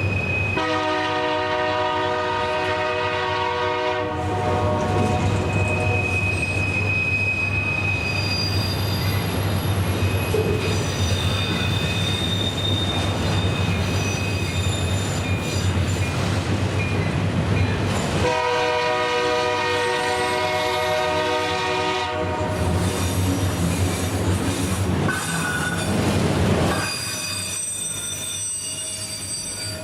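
Diesel locomotive air horn sounding two long blasts, one near the start and one about 18 seconds in, over the steady rumble and rail noise of a passing train, with a thin high wheel squeal at times.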